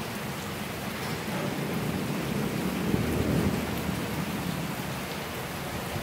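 Steady rain, with a low rumble of thunder that swells and fades about halfway through.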